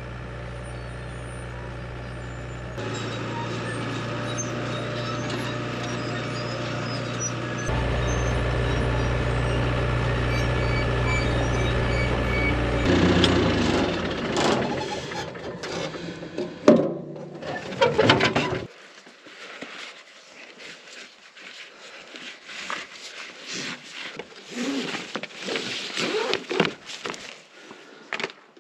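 Bulldozer's diesel engine running steadily under load while dragging a heavy concrete form off a truck, growing louder twice in the first third. Around the middle come clanking and scraping knocks. Then the engine drops out, leaving scattered knocks and clinks.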